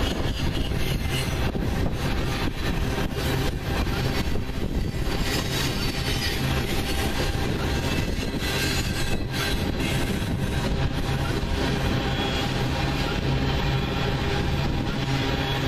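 Freight train tank cars rolling past close by: a steady rumble of steel wheels on the rails.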